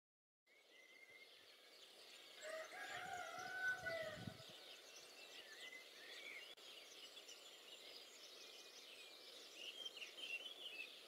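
A rooster crowing once, a long call starting about two and a half seconds in, over small songbirds chirping throughout. Both are faint.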